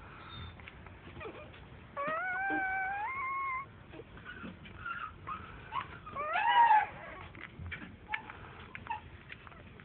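Newborn puppies whimpering while they nurse: a drawn-out rising whine about two seconds in, then a louder squeal that rises and falls around six and a half seconds, with short squeaks and clicks between.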